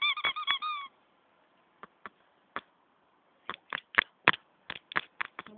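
Goose honking in a quick series of short calls that stop about a second in. After a pause, a run of sharp knocks and clicks near the end is louder than the honking.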